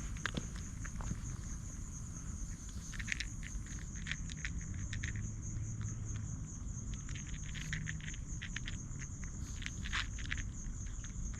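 A steady, high, rapidly pulsing insect trill, with irregular light rustling and ticking steps over it.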